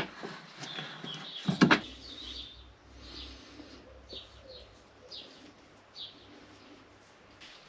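A sharp knock, then a quick double knock, followed by a small bird chirping a few times at irregular intervals.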